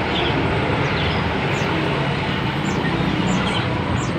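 Steady rumble of traffic or a running vehicle, with a small bird giving short, high, falling chirps about once a second.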